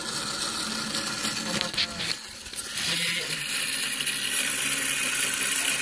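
Metal toy gyroscope spinning fast on a stand, a steady whir from its spinning rotor and pivot point; it gets louder a little after halfway through.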